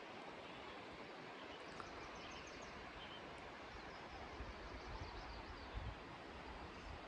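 Quiet outdoor ambience: a steady hiss with faint high bird chirps in the first half, and low rumbling thumps on the microphone about four to six seconds in.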